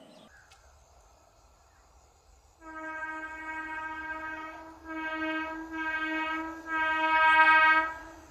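EMU local train's horn sounding four times: one long blast of about two seconds, then three shorter blasts close together, the last one the loudest.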